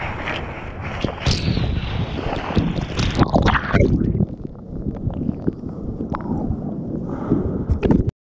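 Ocean wave water rushing and splashing around a water-level camera during a bodyboard ride, with wind buffeting the microphone. It is loudest in the first few seconds as the wave breaks, quieter after about four seconds, and cuts off suddenly near the end.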